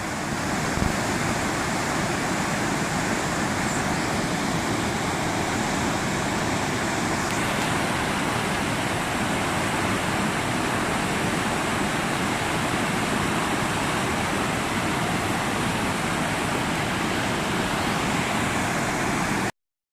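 Waterfall rushing: a steady, even wash of falling-water noise that cuts off suddenly near the end.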